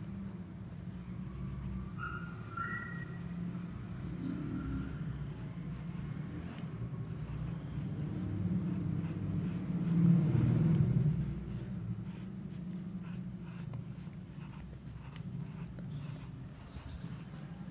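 Pencil scratching on paper in short strokes while sketching, over a steady low hum. A louder low rumble swells and fades about ten seconds in.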